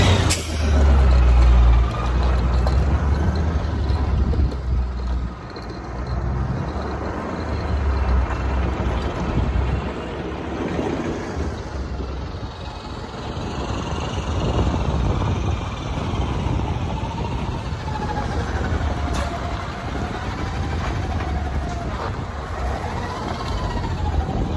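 Kenworth T800 CNG day-cab semi tractor driving up and slowing to a stop close by, its natural-gas engine running. There is a heavy low rumble in the first couple of seconds, and a whine that wavers up and down in the second half.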